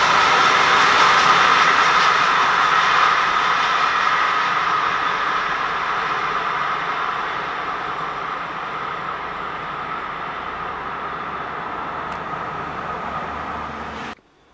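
Freight train's wagons rolling past on the rails: a steady rolling rush with a high ring from the wheels. It slowly fades as the train moves away, then cuts off suddenly near the end.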